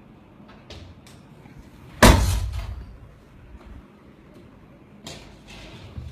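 A single loud bang about two seconds in that echoes off the surrounding buildings for about a second, with a few fainter knocks before it and a softer crack and rustle near the end.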